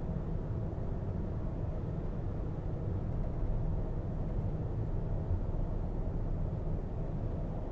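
Steady low rumble of a car cruising at highway speed, heard from inside the cabin.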